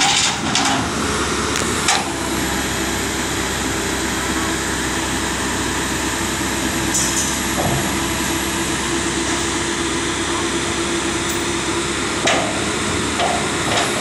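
Tracked excavator's engine running steadily under hydraulic load as it lifts steel sheet piles, with sharp clanks of steel on steel at the start, about two seconds in and about twelve seconds in.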